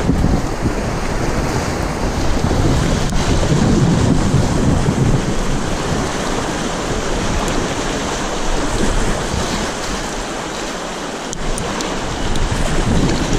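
Loud, steady rush of river water, with wind buffeting the microphone in uneven low rumbles that ease off briefly a little after the middle.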